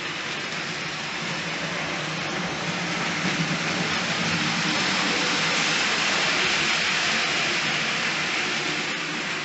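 OO gauge model train running along the track: a steady hissing rattle of wheels on the rails over a low motor hum, growing louder towards the middle.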